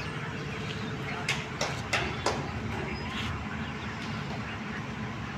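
SANY Jainex 80-tonne truck crane's diesel engine running steadily at idle, with a handful of sharp knocks about one to three seconds in.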